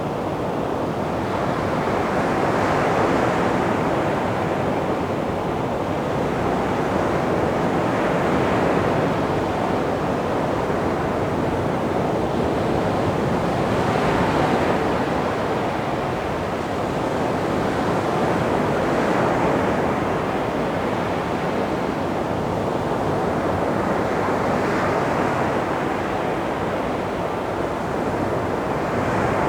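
Gentle sea waves washing onto a beach, a steady surf wash that swells softly every five or six seconds.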